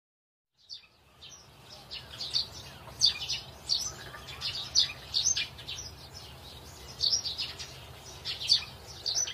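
Birds chirping: many short, high chirps in quick succession over a faint steady low hum, starting about half a second in.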